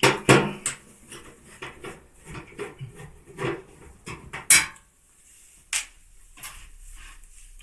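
Irregular metallic clicks and clinks of a screwdriver working out the bolts at the bottom of a washing machine's front panel, one after another. The loudest knocks come right at the start and a little past halfway.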